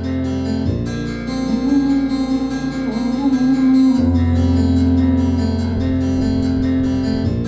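Instrumental passage of a song between sung verses: bass guitar notes under strummed guitar, the low bass note changing roughly every three seconds.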